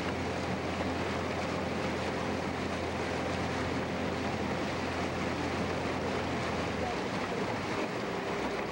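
Small boat's outboard motor running steadily, with water rushing along the hull and wind on the microphone; the motor's low hum eases near the end.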